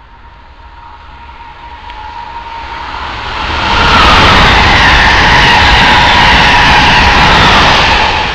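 Amtrak Acela Express high-speed electric trainset passing through a station at speed: a rush of wind and wheels on rail that grows over about four seconds, stays loud as the train goes by, and begins to fade near the end. A faint steady high tone sounds during the approach.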